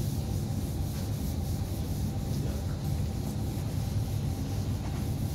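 Whiteboard eraser rubbing across a whiteboard in repeated wiping strokes, over a steady low rumble.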